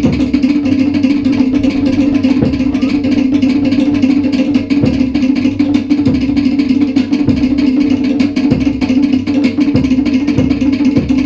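Live Tahitian music from a small band: fast, steady strumming on stringed instruments over a deep drum beat that thumps every second or two.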